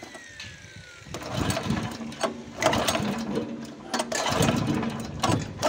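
Small petrol engine on a grass chopper being pull-started with its recoil starter: the cord and starter mechanism rattle as the engine is cranked over in two swells, without catching.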